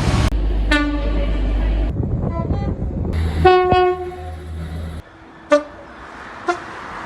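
A string of short train horn blasts from different trains, cut one after another. The first part has a low engine rumble under the horns. After about five seconds the background drops away and two brief toots follow.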